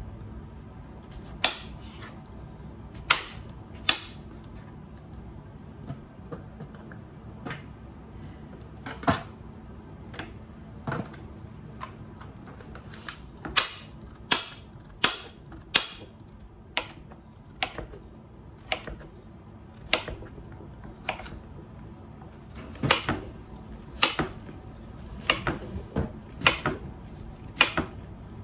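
Kitchen knife cutting peeled potatoes and carrots into chunks on a cutting board: sharp, irregular knocks of the blade striking the board, in loose runs of cuts.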